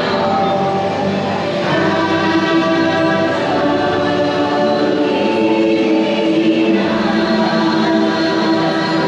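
The ride's soundtrack: a choir singing in sustained, held chords over music, the notes shifting every second or so.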